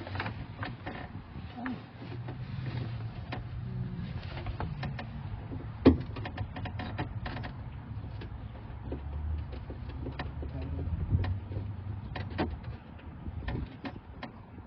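Irregular clicks and knocks of a hand tool working a nut inside a truck's sheet-metal door, tightening down a new exterior door handle, with one sharp knock about six seconds in.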